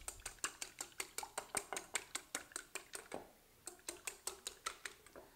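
An egg being beaten in a bowl: a utensil clicks rapidly against the bowl, about seven strokes a second, pausing briefly about three seconds in, then resuming.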